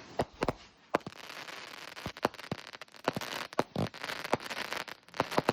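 Fireworks going off: irregular sharp bangs and cracks, more than a dozen, over a steady hiss.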